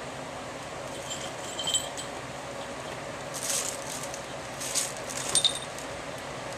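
Small bells on kittens' harnesses jingling in short bursts as they climb about, with a couple of brief rustles as they tread on a bag and its plastic wrapping.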